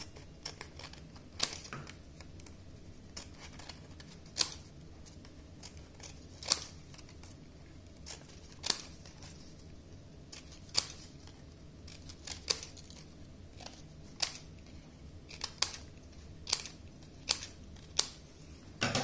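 Scissors snipping through a folded sheet of paper, a short sharp cut about every two seconds at first and coming quicker near the end, as a row of strips is cut into the fold.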